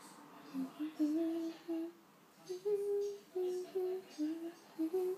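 A person humming a wordless tune in short held notes that step up and down in pitch.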